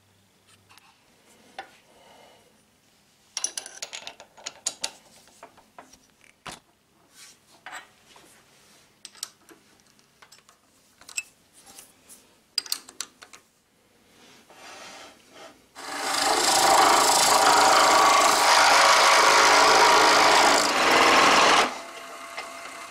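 Metal clicks and scrapes as the lathe chuck is worked and tightened on a resin-and-horn pen blank. About 16 s in the lathe spins the blank with a loud, steady, hissing run for about six seconds, which drops sharply to a quieter run near the end.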